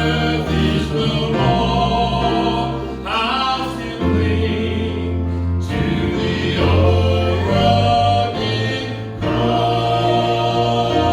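Gospel music: a vocal group singing in harmony, with long held notes and a strong low bass line.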